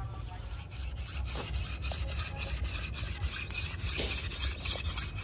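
Dry corn husks and leaves rustling as ears of corn are handled, a quick run of scratchy rustles several times a second.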